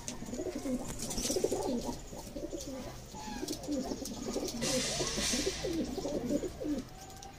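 Domestic pigeons cooing: many overlapping, repeated coos from the loft flock. A brief rustling noise comes about five seconds in.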